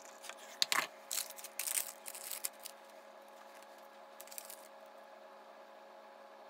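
A sharp knock on a wooden counter, then a couple of seconds of crinkling and tearing as a paper coffee-bag packet is opened, with a few softer rustles later as the bag goes into the mug.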